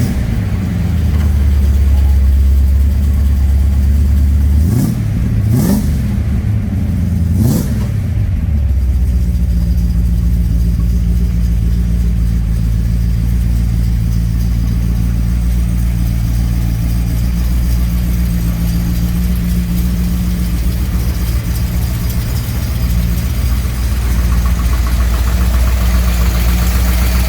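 HDT VK SS Group A Commodore's 4.9-litre 304 V8 idling, then revved three times in quick succession about five to eight seconds in, each rev rising and falling. It then settles back to a steady idle.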